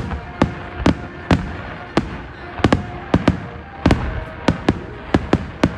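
Aerial fireworks shells bursting in quick, irregular succession, about fifteen sharp bangs, each with a short tail of echo.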